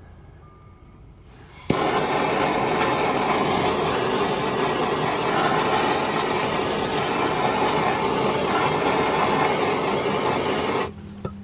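Handheld gas torch lighting with a click about two seconds in, then burning with a steady hiss while it shrinks heat-shrink tubing over a crimped wire splice, and shut off shortly before the end.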